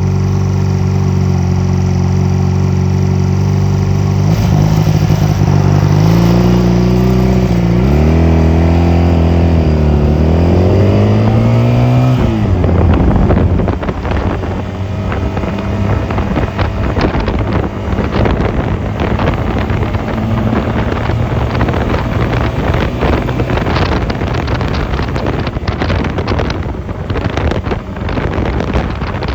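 Honda 250cc motorcycle engine running under way; its pitch dips and then climbs steadily for a few seconds as the bike accelerates. About twelve seconds in, the climb cuts off and rough wind buffeting on the microphone takes over, with the engine lower underneath.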